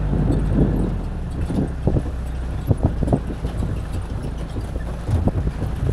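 4x4 vehicle driving over rough, stony ground: steady engine and ride noise, with wind buffeting the microphone and irregular knocks and jolts as it bumps along.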